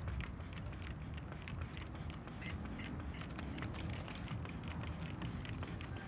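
Trigger spray bottle squirting water onto a wooden bird cage in repeated short sprays, each a brief click and hiss, over a steady low rumble.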